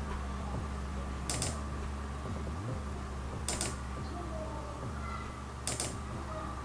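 Three short, sharp mechanical clicks about two seconds apart over a steady low hum.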